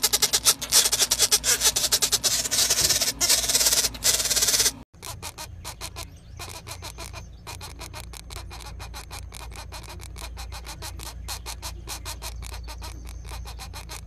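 Pileated woodpecker nestlings begging: a rapid, raspy chatter of fast pulses. It is loud for the first few seconds, breaks off about five seconds in, and resumes quieter.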